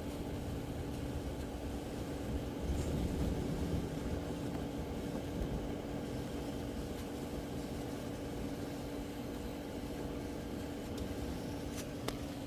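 A motor running steadily, a constant hum with a low rumble.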